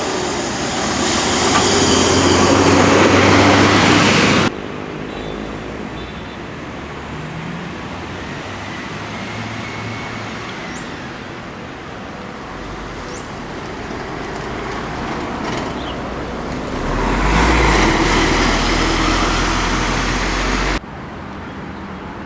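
Large buses passing close by on a toll road: two loud pass-bys of engine and tyre noise, one at the start and one near the end, each cutting off abruptly, with quieter passing traffic between them.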